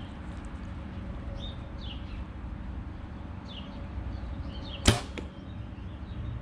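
A bow shot: one sharp crack of an arrow loosed and striking about five seconds in, over scattered songbird chirps and a steady low rumble.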